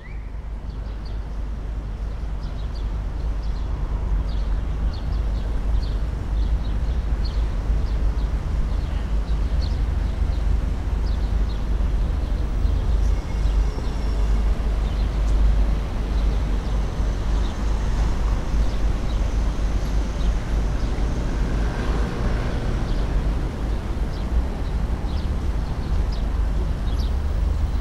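City street ambience: a steady low rumble of traffic, fading in over the first couple of seconds, with small birds chirping on and off above it.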